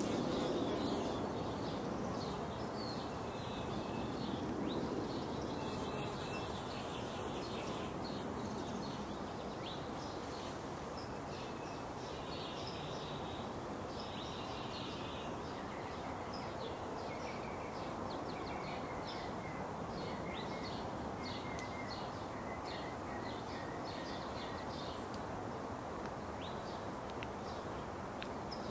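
Small birds chirping in short, scattered calls over a steady hiss of outdoor background noise, with a run of quick repeated chirps in the second half.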